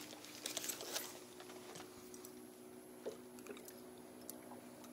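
Faint scattered clicks and handling rustles of fishing pliers being pulled from a vest and worked at a hook in a fish's mouth in a landing net, over a faint steady hum.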